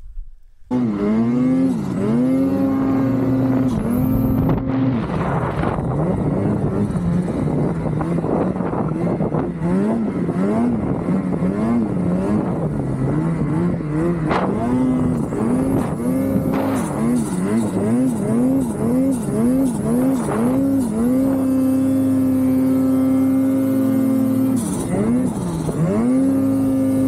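Ski-Doo snowmobile's two-stroke engine revving hard through deep snow, starting about a second in, its pitch rising and dropping over and over as the throttle is worked, with a few stretches held at high revs.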